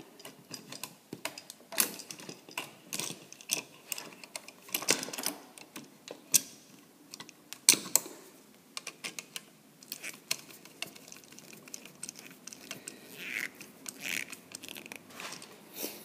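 Irregular clicks and taps of a screwdriver, stiff wire ends and a three-way toggle switch knocking against a metal switch box as the wires are hooked to the switch's terminal screws.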